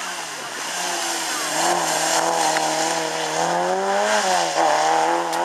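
A small hatchback rally car's engine running hard at high revs as the car passes close and drives away. The revs dip briefly just after the start, hold high, then rise, dip and pick up again near the end.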